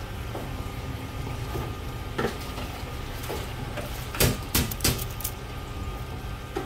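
Live prawns being skewered on bamboo sticks in a steel tray: a few sharp clicks and rattles of shell, skewer and tray, one about two seconds in and a louder cluster of about four a little past the middle, over a steady low hum.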